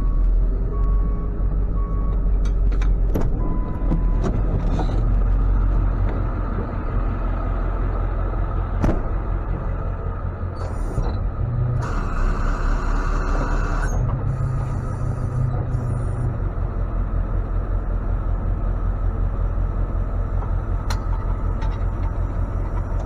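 Tow truck engine running with a steady low rumble, its reversing beeper sounding briefly at the start. A burst of hiss in the middle lasts about two seconds, with a few sharp clicks scattered through.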